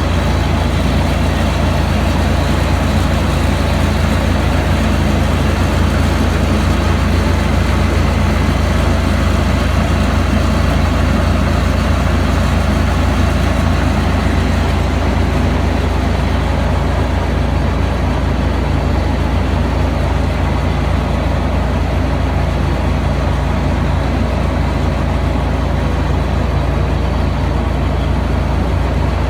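Heavy farm machine's diesel engine running steadily, a constant deep drone with no change in speed.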